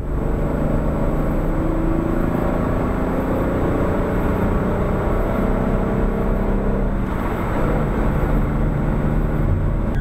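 Chevrolet Camaro driving at a steady pace, its engine running at an even note under steady tyre and road noise, heard from inside the cabin.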